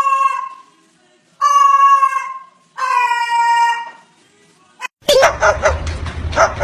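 Three long, drawn-out animal cries, each about a second long, level or slightly falling in pitch. About five seconds in they give way to short, sharp, repeated sounds over a low rumble.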